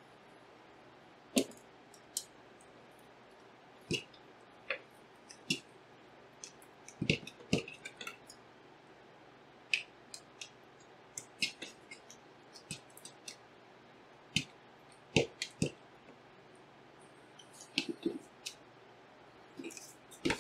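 Irregular small clicks and light knocks of a graphics card's shroud and parts being handled and worked loose, with a few duller thumps as pieces are set down or pried.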